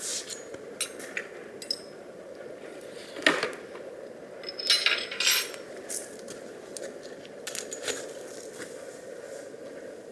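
Scattered light clinks and knocks of small hard objects being handled, the sharpest about three seconds in and a short flurry around the middle, over a steady low hum.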